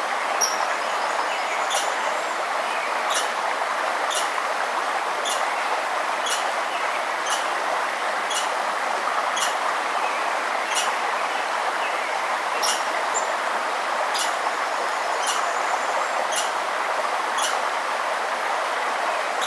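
Steady rush of flowing river water, with a bird repeatedly giving short, high chip notes about once or twice a second and a few brief thin whistles.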